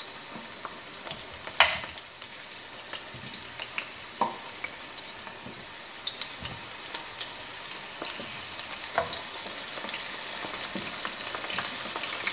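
Lampascioni bulbs deep-frying in hot oil: a steady sizzling hiss dotted with many small crackles and pops, with a few sharper clicks, growing gradually louder toward the end.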